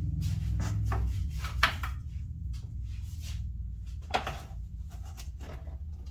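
Handling noises from a flexible cork roadbed strip being lifted, bent and laid onto the benchwork: light rubbing and scraping with two sharp knocks, one about a second and a half in and one about four seconds in, over a low steady hum.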